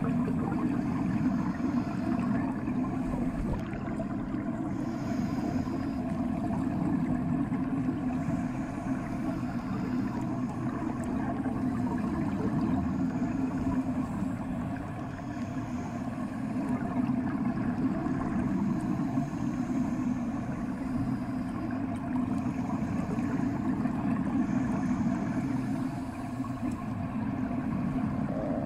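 Underwater ambience in a bathtub: a steady, muffled low rumble of moving water as heard with the ears below the surface.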